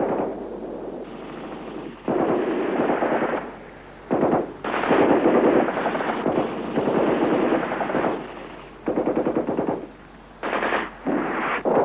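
Automatic gunfire in about six long bursts of rapid shots, each a second or so long, separated by short pauses.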